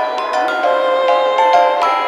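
Background music led by a mallet instrument such as a marimba or glockenspiel, playing a quick melody of short bright notes.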